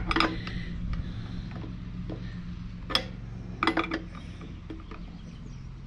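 A steel open-end wrench clinking and clicking against the threaded air-filter fitting on an air compressor's pump head as it is tightened snug: a few sharp metal clicks spread out over several seconds, over a steady low hum.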